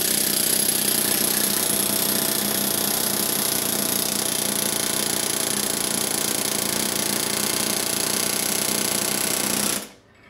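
Pneumatic aircraft riveting gun hammering steadily through a black iron extension with a brass head, driving an FAL gas block onto its barrel journal. It cuts off sharply near the end.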